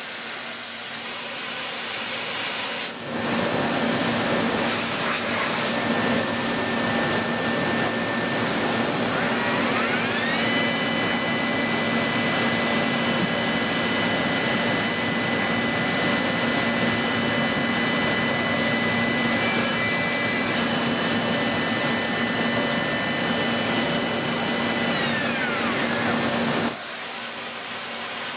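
Mori Seiki mill-turn CNC machining center running with a constant hum. It opens with a spray-like hiss. About ten seconds in, the milling spindle's whine rises in pitch and then holds steady. It falls away about twenty-five seconds in, and the hiss returns near the end.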